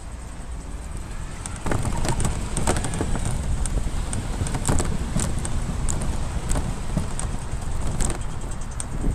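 Velomobile rolling on pavement: a low road and wind rumble that gets louder about two seconds in, with irregular clicks and knocks from the shell and drivetrain.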